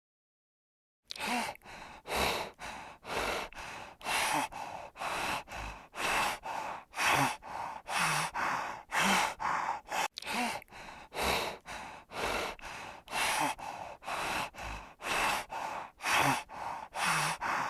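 An animal breathing heavily and rhythmically, about two breaths a second with louder and softer breaths alternating, starting about a second in.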